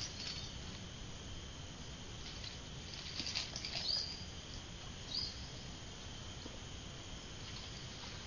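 Steady high-pitched insect chirring, like crickets or cicadas, with a few short noisy sounds about three to four seconds in and a brief chirp near five seconds.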